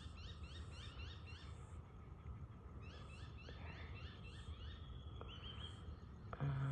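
Morning birds calling, rapid rising chirps repeated several times a second, in two spells with a short lull between. A brief louder low voice-like sound comes near the end.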